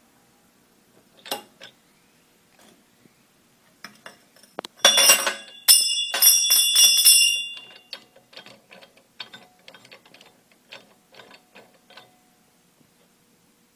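A chrome metal tube knocking and ringing as it comes out of a small bench vise, for about three seconds, followed by a run of small clicks and ticks as the vise's knob and screw are turned.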